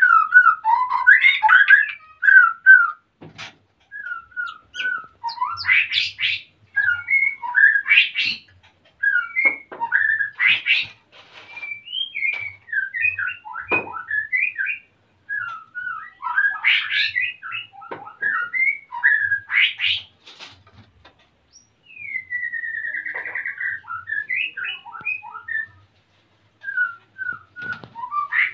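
White-rumped shama singing in breeding condition: phrase after phrase of short, varied whistled notes and chirps, separated by brief pauses, with one longer sliding phrase about two-thirds of the way through.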